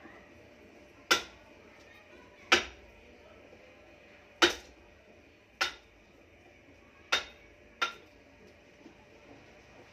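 Mallet striking a steel chisel to cut a wooden sculpture: six sharp blows at uneven intervals of one to two seconds, each with a brief metallic ring.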